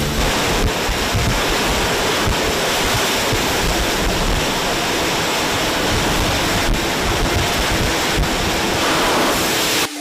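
Typhoon-force wind and driving rain: a steady, loud roar of storm noise with wind buffeting the microphone, cutting off suddenly just before the end.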